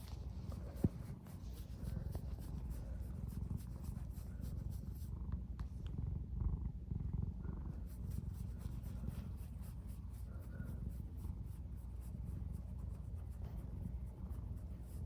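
Domestic cat purring steadily, a continuous low rumble, with one sharp click about a second in.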